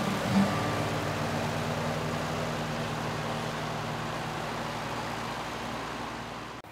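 Old farm tractor engine running steadily with a low, even hum, fading out near the end.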